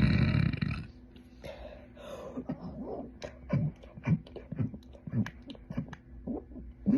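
A woman's long, deep burp ends about a second in. A string of brief throat and mouth noises and clicks follows, and another burp starts right at the end.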